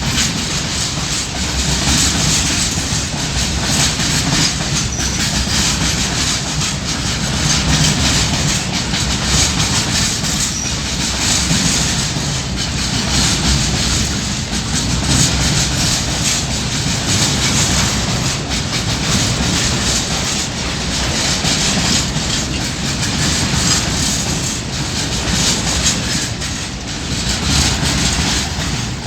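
Indian Railways train rolling steadily past at close range, its coach wheels clattering over the rail joints with a continuous rumble and rattle.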